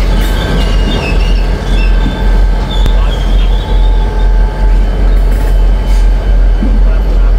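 Two EMD GP50 diesel locomotives passing close by at low speed, their engines running with a heavy low drone, while the wheel flanges squeal on and off in a high wavering tone.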